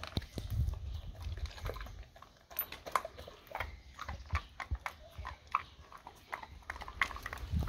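Dog chewing and crunching a treat, with irregular clicks and smacks of its mouth.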